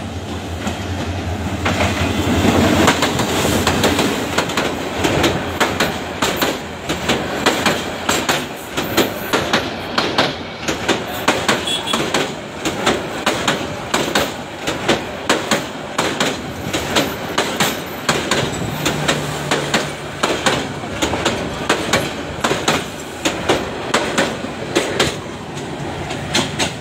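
Dolonchapa Express passenger train passing at speed. A diesel locomotive's engine drones for the first few seconds, then the passenger coaches' wheels clatter over the rail joints in a steady, even rhythm.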